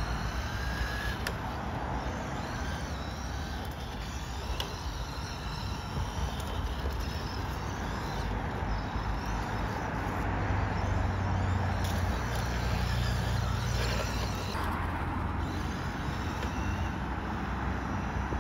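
1/10 radio-controlled car on a Tamiya MB-01 chassis driving on a road. Its electric motor whines and wavers up and down in pitch as it speeds up and slows, over a steady outdoor rumble.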